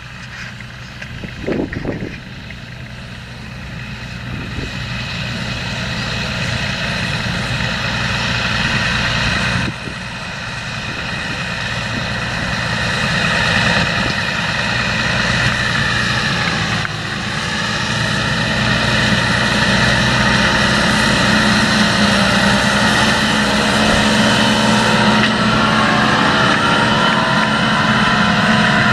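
John Deere 7230R tractor's six-cylinder diesel engine running steadily under load while pulling a seed drill through the field, with a steady higher whine over the engine note. It grows gradually louder, with a sudden brief drop about ten seconds in.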